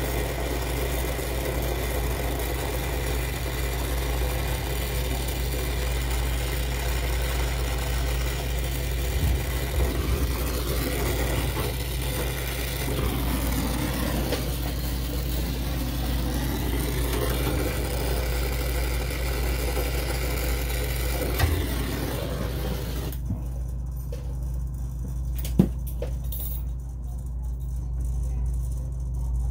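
Steady hiss of gas flowing from the brazing setup while a TEV is brazed into a freezer evaporator, over a low steady machine hum. The hiss cuts off suddenly about 23 seconds in, leaving the hum and a couple of sharp clicks.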